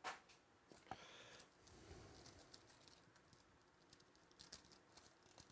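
Near silence with faint rustling and a few soft clicks of trading cards and their packaging being handled.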